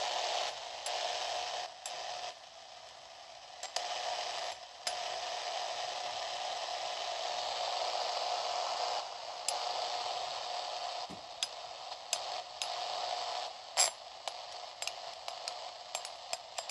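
A Yaesu handheld radio tuned to 400 MHz playing steady hiss and static through its speaker, the RF noise it is picking up on that frequency. The hiss drops back for a second or so a couple of seconds in, and sharp clicks and crackles break in here and there, coming thicker near the end.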